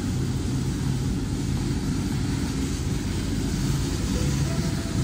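Motor yacht's twin Volvo Penta diesels on IPS drives running steadily on the plane: a steady low drone under the rushing of the wake and wind.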